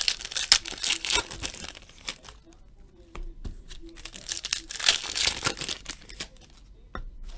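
Foil wrapper of a Panini Playoff football card pack being torn open and crinkled by hand, in two spells of crinkling, the second about four seconds in.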